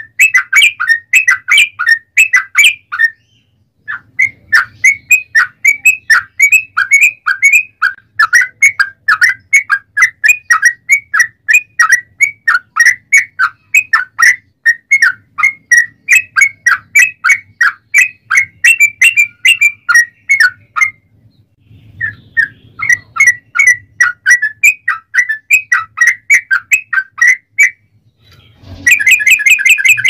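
Yellow-vented bulbul singing a long, rapid run of repeated notes, about five a second. The run breaks off briefly three times and turns into a faster trill just before the end.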